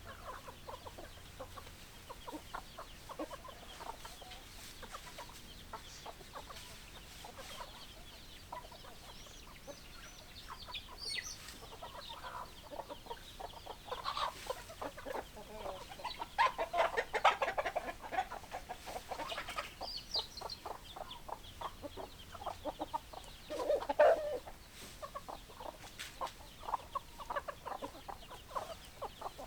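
Domestic hens clucking: many short, irregular clucks from a flock, getting busier and louder about halfway through, with one loud outburst near the end.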